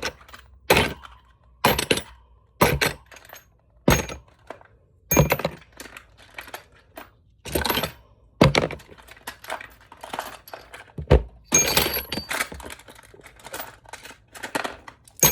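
Metal hand tools being dropped into a bin, a sharp clatter about once a second, with busier rattling in the last few seconds.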